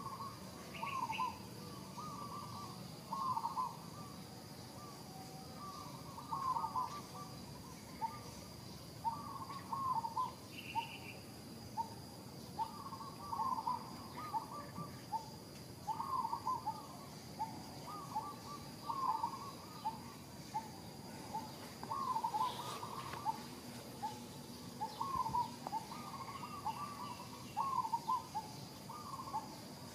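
Repeated short hooting animal calls, each note falling in pitch, coming in runs of two or three about every second, with a faint steady high-pitched tone behind them.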